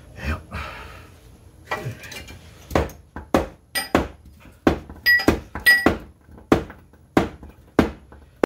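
Hammer blows, about a dozen in a steady run of roughly one to two a second, some ringing briefly like metal: tapping a wedge to adjust the position of a manual transmission held under the car.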